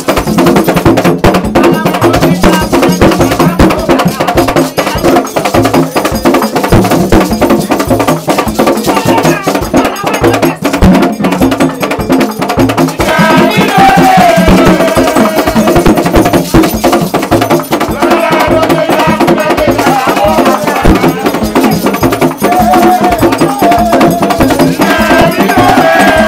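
Haitian Vodou drum ensemble playing a fast, driving ceremonial rhythm, with voices singing over it, most strongly from about halfway through.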